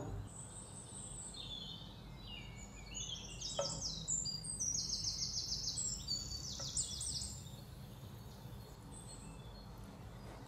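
A bird singing: quick runs of high repeated chirps through the first seven seconds or so, with two soft knocks about three and a half and six and a half seconds in, over a low steady hum.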